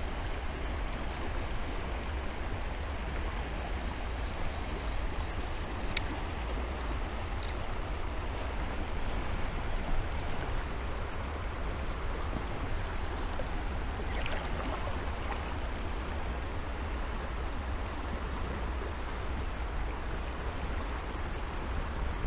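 Steady rush of water from river rapids, with a low rumble beneath it.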